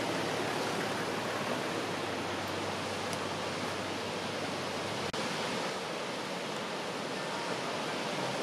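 Rushing water of a mountain waterfall and stream: a steady, even hiss. A low hum runs underneath and ends with a brief break about five seconds in.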